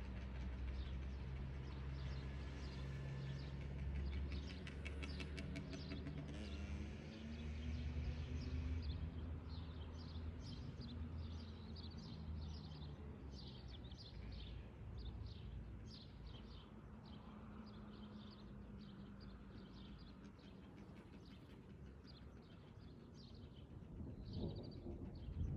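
Outdoor ambience of birds chirping repeatedly, many short calls, over a low steady rumble that fades after about the first half. A brief louder noise comes near the end.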